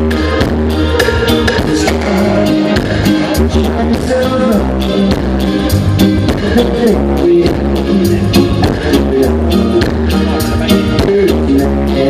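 Music with a steady beat and heavy bass, played loud through a Norton Audio line array PA speaker.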